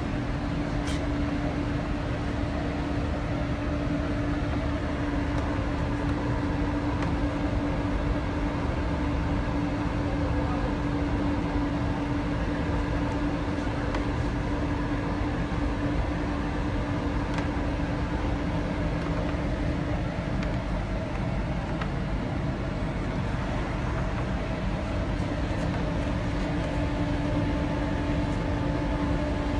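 A machine running steadily: a constant hum with one strong steady tone over an even rumble, unchanging throughout.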